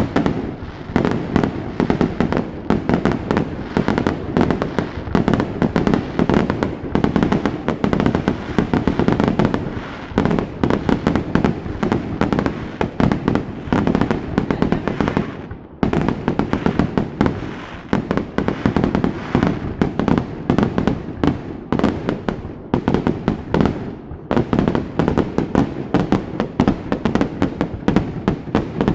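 Fireworks display: a dense, continuous barrage of sharp bangs, many a second, dropping off briefly about halfway through before resuming.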